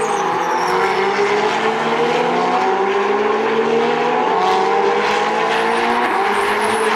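Several Ferrari Challenge race cars' V8 engines running hard, their notes overlapping, with the pitch climbing steadily as they accelerate.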